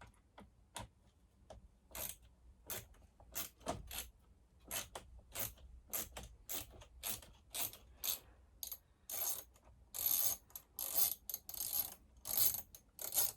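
Hand ratchet wrench clicking as a freshly loosened nut is backed off a chainsaw's anti-vibration mount bolt. The clicks come spaced out at first, then in quicker runs over the last few seconds.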